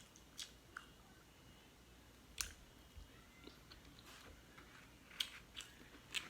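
Quiet eating sounds from a seafood boil: soft chewing and a scattered run of short mouth clicks and smacks.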